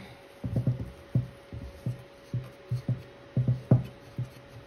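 Irregular low thumps and knocks, about a dozen in four seconds, from a clay 3D printer's feed hose and clay cylinder as they are handled at the coupling, with a faint steady hum underneath.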